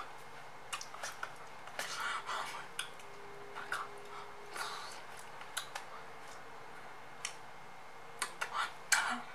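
A person making short mouth sounds: scattered clicks and brief breathy, whispered bursts without clear words, busiest about two seconds in and again near the end.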